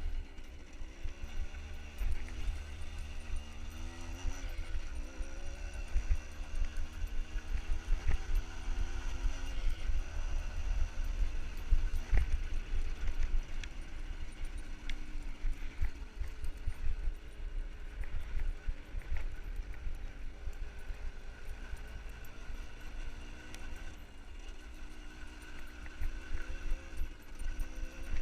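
Small motorbike engine running with its pitch rising and falling as the throttle varies, over a steady low rumble.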